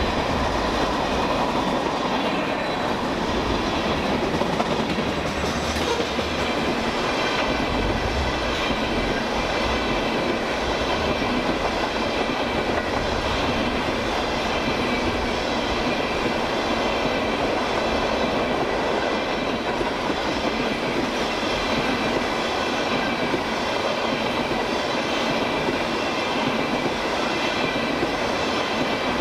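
Freight train cars rolling past close by: a steady rush of steel wheels on rail with clickety-clack over the joints, and a thin, steady high squeal from the wheels.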